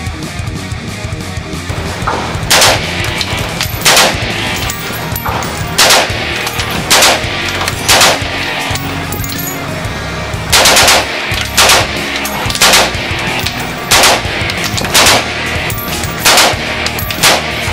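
M4 carbine in .223 firing single shots about once a second, about a dozen in all, with a quick pair near the middle. Background music plays underneath.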